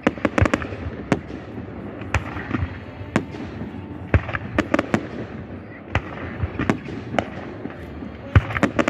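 Fireworks display: irregular bangs of aerial shells bursting overhead, with quick rattling clusters of reports about half a second in, around five seconds in and again near the end.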